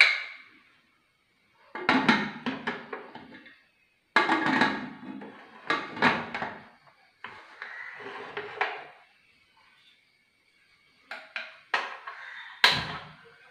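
Prestige aluminium pressure cooker lid being fitted and closed onto the cooker: a series of metal clatters and knocks in separate bursts, some with a short ringing.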